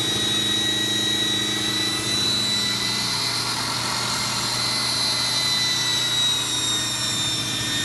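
A small high-speed power tool motor running steadily, with a high whine over a rushing noise, starting abruptly. A low hum runs underneath.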